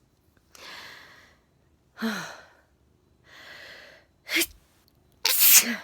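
A woman in a sneezing fit: breathy in-breaths and a run of sharp sneezes, the last one, near the end, the loudest.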